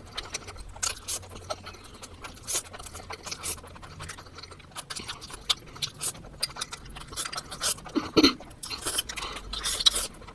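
Close-miked eating sounds: chewing and mouth noises with irregular small clicks and scrapes of utensils against dishes, a little louder about eight seconds in.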